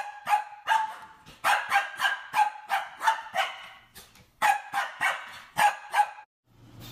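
Small dog barking in a rapid series of high yaps, about three a second, with a brief pause near the middle, stopping shortly before the end.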